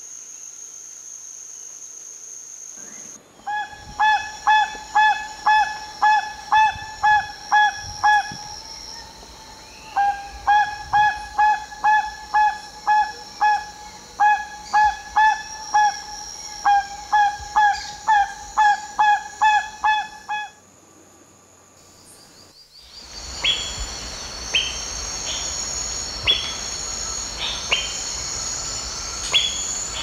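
Crested guan giving a long run of loud, honking calls, about two a second, in several bouts. After a short pause it gives way to a steady insect chorus with sharp high call notes roughly once a second.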